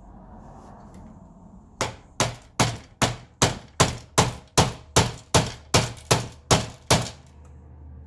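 About a dozen sharp, evenly paced blows, roughly two and a half a second, knocking at a stuck part of a projector being dismantled. They start about two seconds in and stop about seven seconds in.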